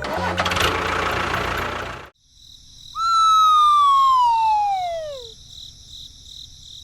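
A noisy rush for about two seconds, then a single whistle-like tone sliding steadily down in pitch for about two seconds: a cartoon-style falling sound effect.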